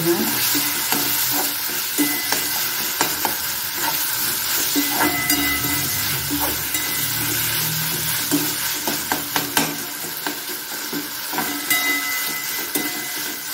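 Onions, lentils and drumstick pulp sizzling in oil in a kadai as a spatula stirs and scrapes them, with repeated clicks of the spatula against the pan.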